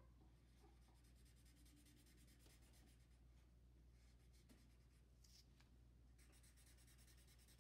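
Faint scratching of a felt-tip marker colouring in on paper, over a steady low hum.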